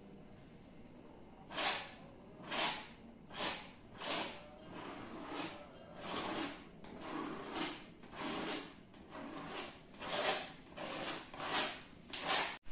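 Paintbrush dragged down a stretched canvas in a run of short, dry scraping strokes, about one a second, starting a second or so in.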